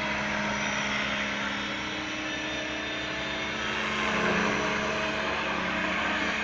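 Several radio-controlled helicopters (Align T-Rex 500, 600 and 700) flying together: their rotors and motors make a steady drone with several tones at once, growing a little louder about four seconds in.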